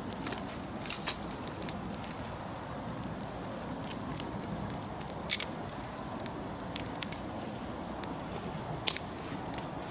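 Campfire of dry branches stacked in a cone, burning with a steady hiss and crackling. Sharp pops come every few seconds, the loudest about a second in, around the middle and near the end.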